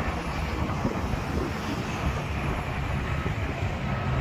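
Diesel engines of heavy demolition equipment running with a steady drone.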